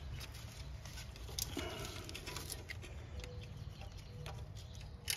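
Faint clicks and rustling from a gloved hand handling wiring and a nut in a car's engine bay, over a steady low background rumble, with a sharper click near the end.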